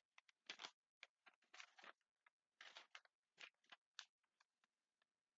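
Faint rustling and crinkling of a sheet of printed paper being handled, in short irregular bursts that thin out near the end.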